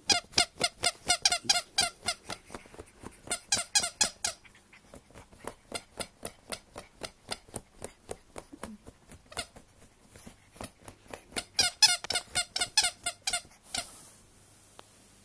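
A squeaky toy porcupine squeezed by a dog through a sheet: a quick run of squeaks for about four seconds, then fainter rapid scratching at the sheet, then another fast run of squeaks near the end.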